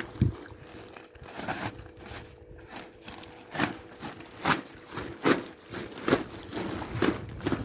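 Plastic silage-clamp sheeting crinkling and rustling as it is handled, with a sharp crunching stroke roughly every second in the second half.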